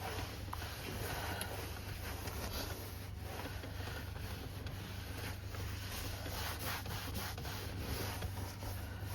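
A cloth rubbing and wiping over the truck's interior surfaces, a continuous scratchy rubbing over a low steady hum.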